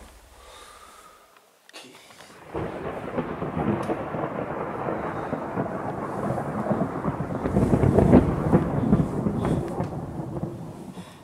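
A long roll of thunder: a low rumble that starts about two and a half seconds in, swells to its loudest about eight seconds in, then dies away near the end.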